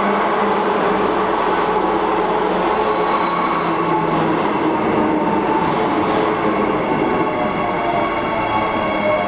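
Transperth B-series electric train pulling into the station: a loud, steady running noise overlaid with high-pitched squealing, the highest squeal rising in from about three seconds in and fading out at around five and a half seconds.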